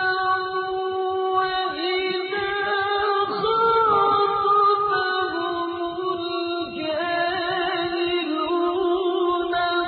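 A reciter's voice chanting the Quran in melodic tajweed style, drawing out long held notes that waver and turn in pitch without a break.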